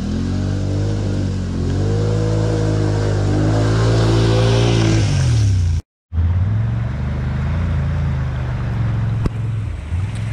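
Off-road vehicle engines: an ATV engine revving, its pitch rising and falling for several seconds. After a sudden cut about six seconds in, a side-by-side UTV's engine runs at lower, steadier revs.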